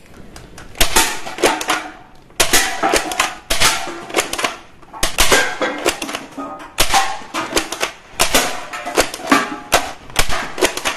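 Toy gun firing in repeated bursts of rapid plastic clicks, a burst about every second.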